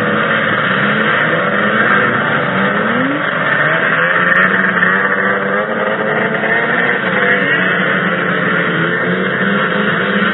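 Racing snowmobile engines running at high revs, their pitch wavering and one rising about three seconds in, with the hiss of the sleds on the snow.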